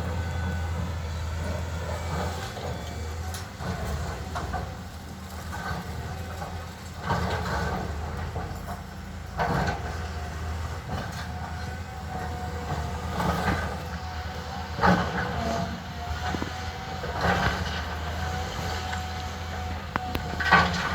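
Excavator running steadily with a low hum and a held whine, with sharp metallic clanks every few seconds.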